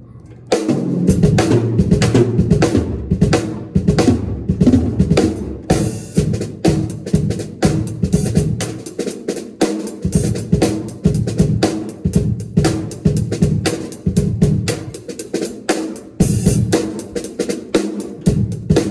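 Drum kit being played in a fast, busy groove of kick drum, snare and cymbals, starting about half a second in. There are heavier cymbal washes about a third of the way in and again near the end.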